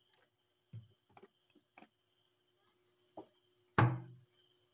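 Stainless steel sink being handled and scrubbed: a few light knocks on the metal, then one loud knock about four seconds in that rings on briefly.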